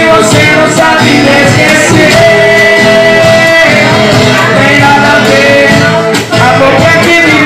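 Live acoustic guitar strummed as the accompaniment to men singing into microphones.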